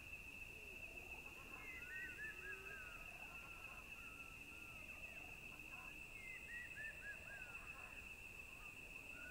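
Faint outdoor nature ambience: a steady high-pitched hum, with a run of short bird chirps about two seconds in and another run about six and a half seconds in.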